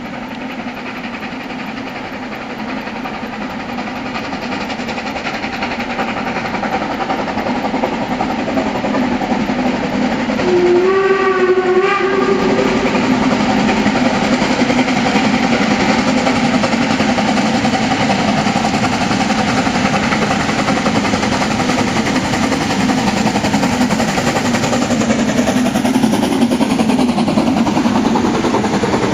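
Narrow-gauge steam tank locomotive 99 7247-2 working up a steep grade with a passenger train, growing louder as it approaches. One short steam whistle blast sounds about eleven seconds in.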